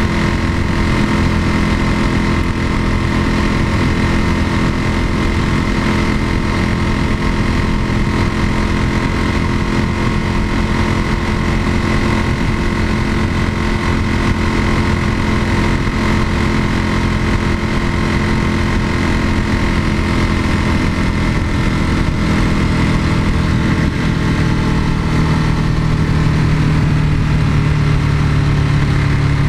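Ducati 996's L-twin engine running at steady revs, its pitch easing down a little in the last few seconds.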